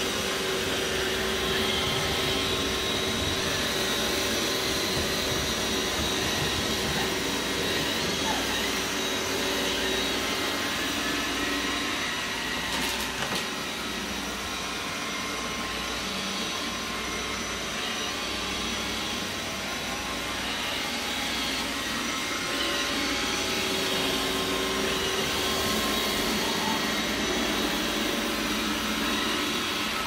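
iRobot Roomba robot vacuum running across a hardwood floor: a steady motor hum with a high whine over the noise of its suction and brushes, dipping slightly in level in the middle.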